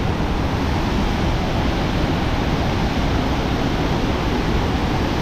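Usri waterfall in rain-swollen spate: a loud, steady rush of water falling very hard.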